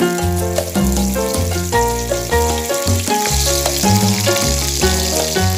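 Background music with a steady beat and bass notes, over the sizzle of carrot pieces frying in oil in a pan. The sizzle grows stronger a little past halfway.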